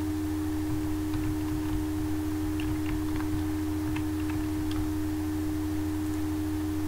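Steady electrical hum with a constant mid-pitched tone underneath, the background noise of the recording setup. Faint scattered clicks, typical of keyboard keys, come through it as the project name is typed.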